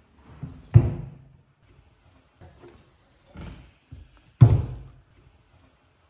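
Wooden cabinet door banging shut twice, loud knocks about a second in and near the end, with softer knocks and bumps against the cabinet between them.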